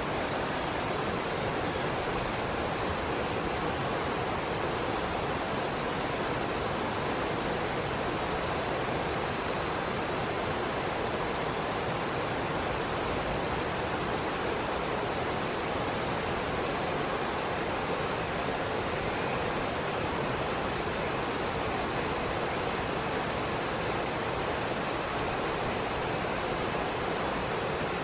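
Steady outdoor ambience of flowing water with a constant high insect chorus over it, unchanging throughout.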